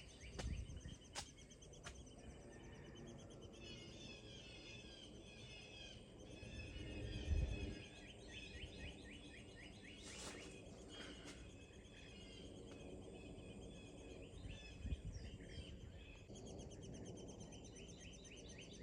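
Woodpecker nestlings begging inside the nest cavity: a faint, continuous chorus of rapid, high chirping notes. A low bump about seven seconds in.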